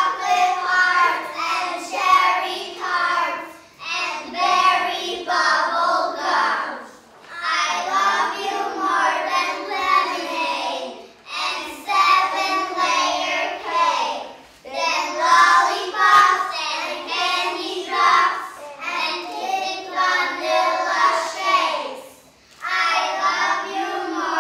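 A group of young children reciting a rhyming verse together in Polish, in unison and in a sing-song chant, in phrases a few seconds long with short breaks between.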